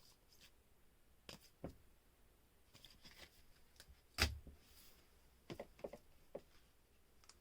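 Faint scattered clicks and taps of trading cards in plastic holders being handled and set down, the loudest about four seconds in.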